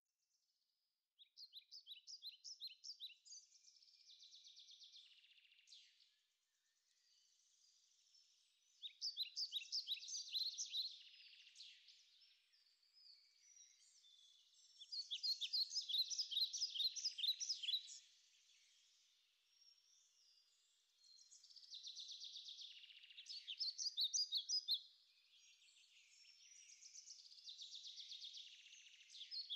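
Birdsong: fast trilled phrases of quick repeated chirps, each lasting a few seconds and recurring about every six seconds, with a faint hiss between phrases.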